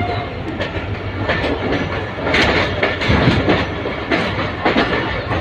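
Passenger train running along the track, heard from aboard a carriage: a steady rumble with irregular wheel clicks and clatter over the rail joints. A horn note cuts off right at the start.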